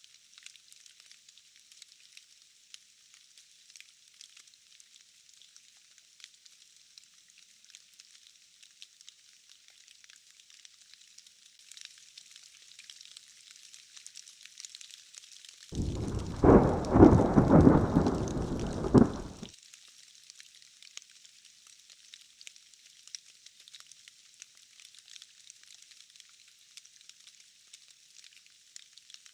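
Steady rain hiss, with one loud rumble of thunder about 16 seconds in that lasts about three and a half seconds and starts and stops abruptly.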